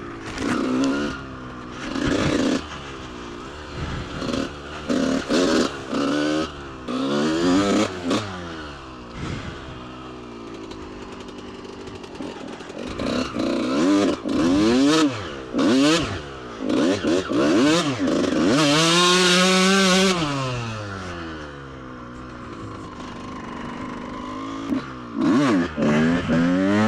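2003 Kawasaki KX125 two-stroke engine revving up and falling back again and again as the bike is ridden, with one long high-rev pull about nineteen seconds in that then drops away.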